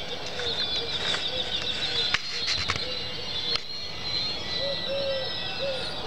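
Evening jungle chorus of calling animals: a dense high-pitched chorus of fast trills runs throughout, under a series of short, low, arched calls repeated over and over. A few sharp clicks sound around the middle.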